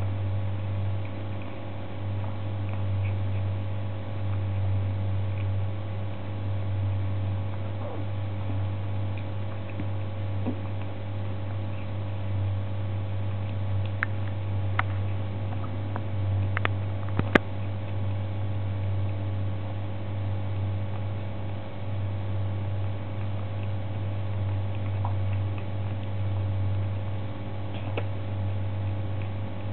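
A kitten eating salmon off a plastic plate: faint chewing with a few small sharp clicks, the sharpest about 17 seconds in, over a steady low hum.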